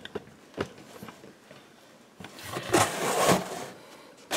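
Clear plastic blister packaging being handled: a few light clicks, then about a second of crinkling and rustling plastic.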